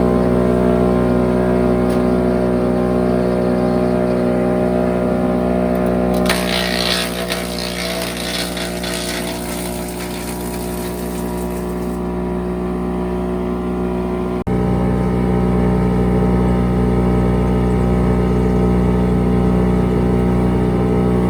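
Large wood chipper's engine running steadily at speed. From about six seconds in, for several seconds, the crackling shred of brush being fed through the chipper, with the engine pulling down slightly under the load, then steady running again.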